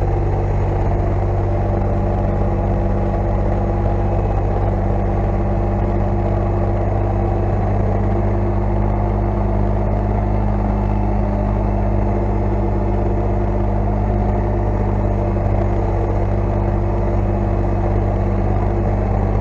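Engine idling steadily, a low, even hum that holds the same pitch throughout.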